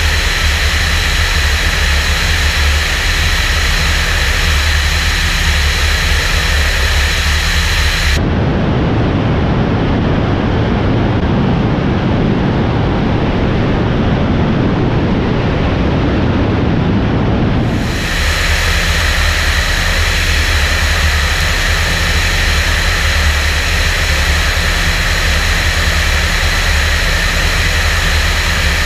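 Steady rush of wind and drone of a Europa light aircraft's engine in cruise flight, picked up by a camera on the wing. For about ten seconds in the middle the sound switches to a duller, muffled rush from a second camera, then the wing camera's sound returns.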